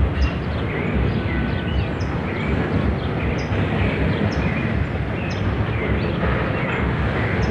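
Freight train of loaded open wagons rolling along the track, a steady low rumble.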